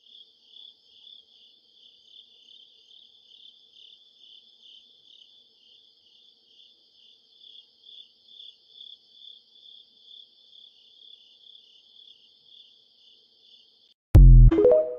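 Crickets chirping in a steady high pulse, about two chirps a second: the stock crickets sound used to mark an awkward silence. About a second before the end, a much louder, low electronic sound with rising tones cuts in.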